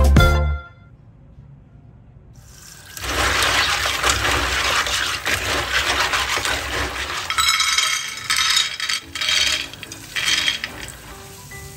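Tap water splashing into a plastic basin while hands rub and rinse live clams, the shells clinking against one another. The water starts about two seconds in; the later part comes in shorter bursts of splashing and clinking.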